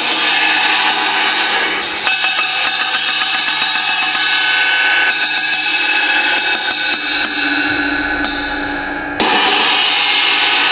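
A hand-held crash cymbal with holes cut through it, struck again and again with a drumstick. Each hit renews one loud, continuous ringing wash.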